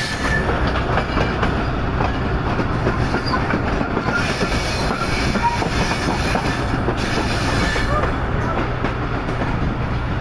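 A moving passenger train heard from inside the coach doorway: a steady rumble and clatter of its wheels on the rails as it runs along the track.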